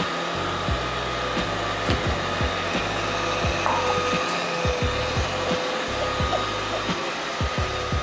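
Ecovacs Deebot robot vacuum running on a wood floor: a steady whir from its motor and brushes with a faint high whine, and irregular soft low thumps.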